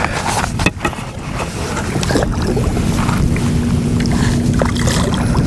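Wind buffeting the microphone on a kayak, over water lapping, with scattered clicks and a faint steady hum that starts about two seconds in.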